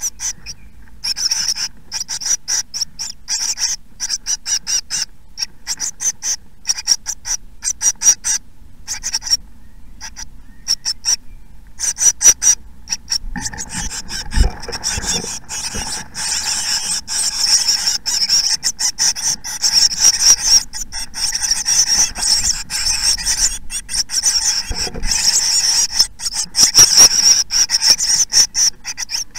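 Blue tit nestlings begging inside a nest box: thin, high, raspy calls, short and scattered at first, then from about halfway through a continuous chorus of rapid calling. A couple of low bumps come from the chicks jostling in the nest.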